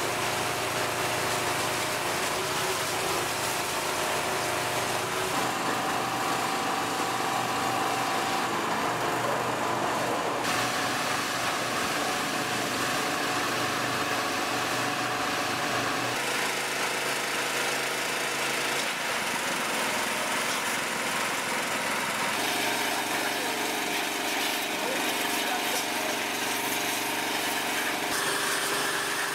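High-pressure washer at work: an engine running steadily under the hiss of the water jet spraying, the engine tone changing abruptly several times.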